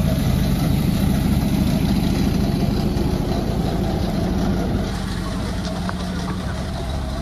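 An engine running steadily at low speed, its level easing down a little about five seconds in.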